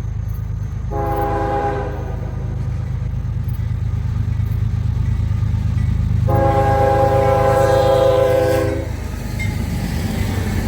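Diesel locomotive's multi-chime air horn sounding a short blast and then a longer, louder one, over a steady low rumble, as the train approaches.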